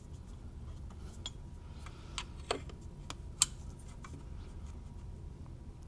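A handful of light metallic clicks and taps, the sharpest about three and a half seconds in, as a round-shank screwdriver works a rubber boot over the aluminium intercooler's flange. A low steady hum runs underneath.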